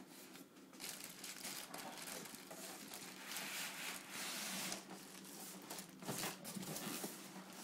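Cardboard box and packaging rustling and crinkling as a boxed PC case is opened and handled, with a denser stretch of rustling near the middle.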